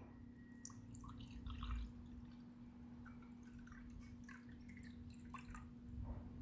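Liquid poured into a glass: a faint trickle with scattered drips.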